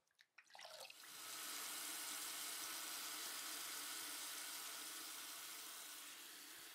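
Bathroom sink tap running steadily as water for rinsing the face after a shave, starting about a second in after a few small splashes and handling sounds.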